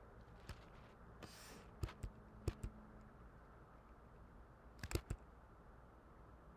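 Faint, scattered clicks of a computer being worked: a few single clicks around two seconds in and a quick cluster of about three near five seconds in. A brief soft hiss comes just before the first group, over a low steady room hum.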